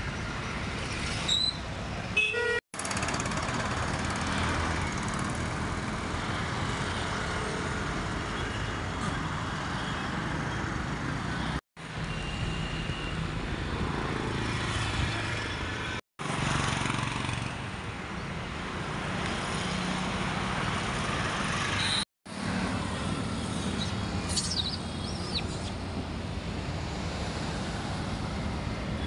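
Steady outdoor background noise, like road traffic, that drops out abruptly four times, with a few brief high chirps near the start and again near the end.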